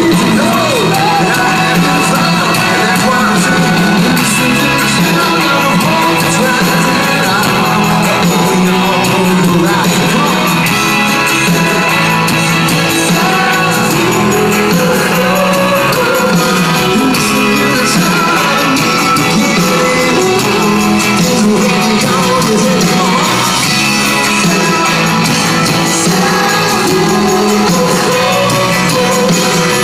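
Live Christian rock band playing at full volume in a large hall: a lead singer sings into a handheld microphone over electric guitar and drums.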